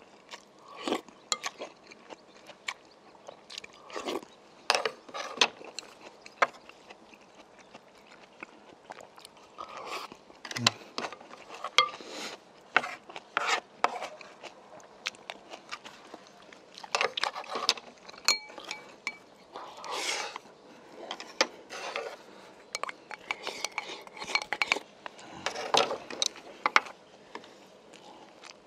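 Close-up eating sounds: broth slurped from a wooden spoon, chewing, and the wooden spoon and chopsticks clicking against the clay pot and dishes in short, irregular bursts.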